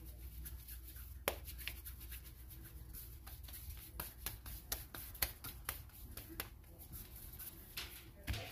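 Hands rolling pieces of bread dough into balls on a plastic cutting board: faint, irregular soft pats and taps, with a sharper tap about a second in.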